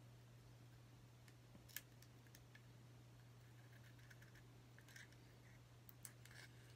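Near silence: a steady low hum, with a few faint clicks and rustles of fingers handling a thin plastic sheet, about a second and a half in and again near the end.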